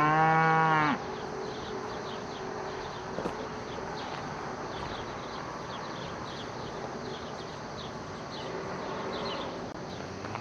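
A cow moos once, loud and about a second long, right at the start. Then there is a quieter background of a steady faint hum and faint high ticking.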